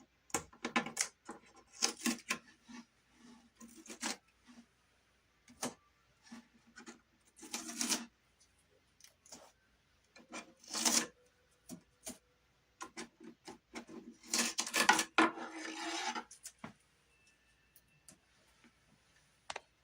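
Rubbing and scraping of a ceiling beam being worked loose and taken down, wood against the ceiling, in irregular bursts with quiet gaps. The longest and loudest stretch comes about three-quarters of the way through.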